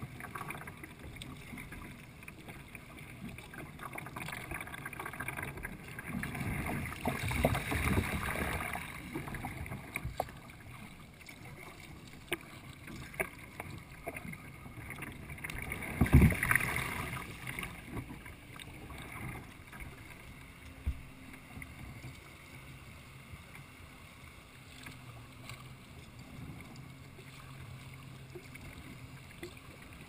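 Water lapping and splashing against a sea kayak's hull as it is paddled, with wind on the microphone. About halfway through comes the loudest moment, a heavy splash and low thump as the kayak heels far over onto its side.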